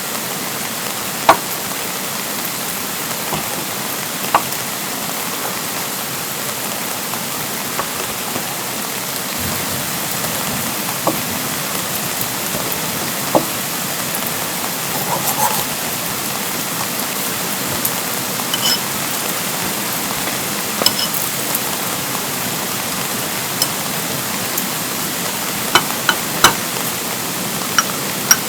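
Steady rain falling, mixed with a rushing valley stream, with irregular sharp taps of single large drops landing close by.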